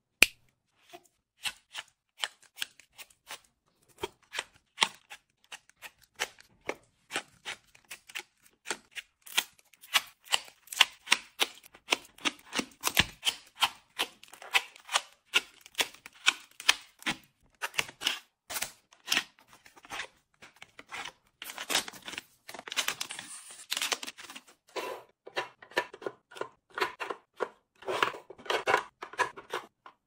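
Small boxes and packets being handled and sorted: a long run of light taps and clacks of cardboard and plastic being picked up and set down, with thicker rustling stretches in the second half.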